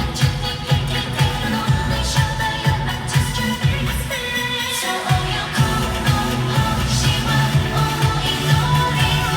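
Asian pop song with a singer and a steady bass beat, played through a RockTek SB210K speaker. The bass drops out briefly about five seconds in.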